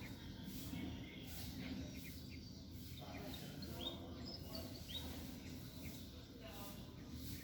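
Small birds chirping: short, scattered calls and quick rising notes, over a steady low background rumble.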